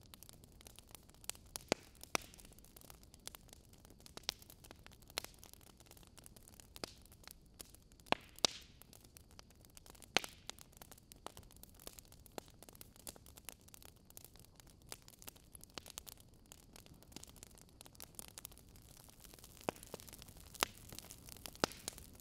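Fire crackling: a soft steady hiss with irregular sharp pops and snaps, a few of them much louder.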